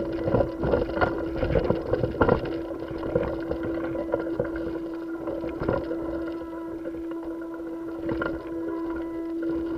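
A steady mechanical hum, heard through a camera mounted on a spacesuit during a spacewalk, with irregular knocks and rubbing as the suited astronaut moves and handles the station's structure. The knocks are thickest in the first couple of seconds, with single ones about halfway through and near the end.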